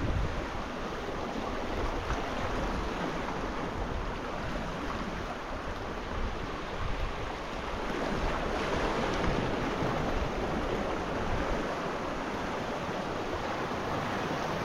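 Steady sea surf, waves washing in with gentle swells, with wind rumbling on the microphone.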